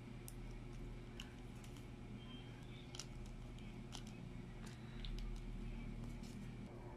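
A paper coffee sachet crinkling, with light scattered ticks as ground corn coffee is shaken out into ceramic cups. A steady low hum sits underneath.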